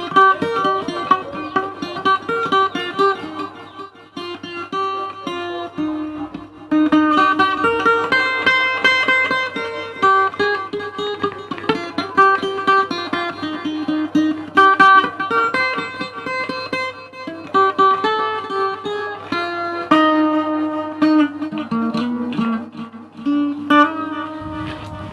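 Music: a fast, rhythmic plucked-string tune, guitar-like, with notes and chords changing continuously and a steady low hum underneath.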